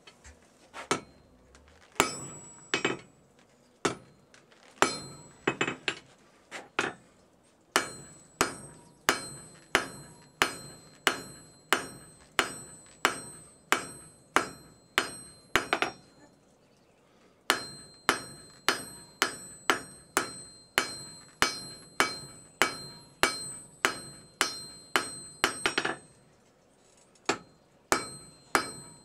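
Hand hammer striking hot railroad-spike steel on an anvil, forging it by hand into a tanto blade. The blows come slowly and unevenly at first, then settle into a steady rhythm of about two a second, each with a bright metallic ring, broken by two short pauses.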